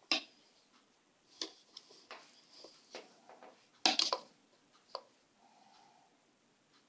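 A few scattered wooden knocks and clacks from a rigid heddle loom as the heddle and shuttle are worked for a down-shed pick. The loudest is a quick double knock about four seconds in.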